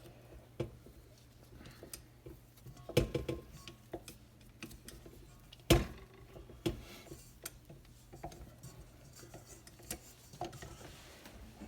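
Stand mixer's dough hook and metal bowl being taken off and handled, with the motor off: scattered knocks and clunks, the loudest about three and six seconds in.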